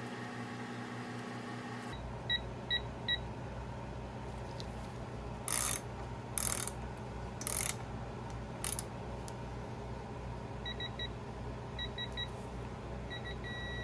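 Digital torque wrench tightening a transmission retaining bolt to its 15 foot-pound setting: three short beeps, four short bursts of noise as the wrench is worked, a few more short beeps, then a long steady beep near the end as the set torque is reached.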